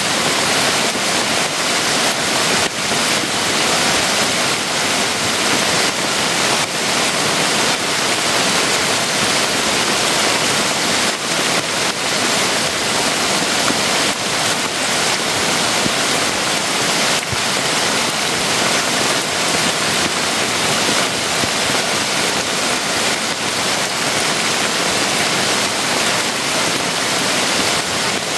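Heavy rain falling steadily on a bamboo forest and a leaf-thatched shelter roofed with plastic tarp: a loud, even hiss with scattered drop taps.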